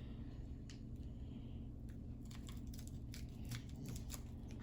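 Faint crinkling and tearing of a plastic snack wrapper being pulled at by hand, with scattered small crackles that grow busier about halfway through.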